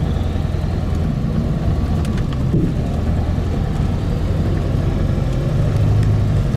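Pickup truck carrying a camper driving at highway speed, heard from inside the cab: a steady low drone of engine and road noise.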